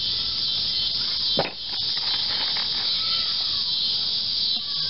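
Cicada song: a steady, high-pitched buzzing drone. A single sharp knock comes about a second and a half in, followed by a few light clicks.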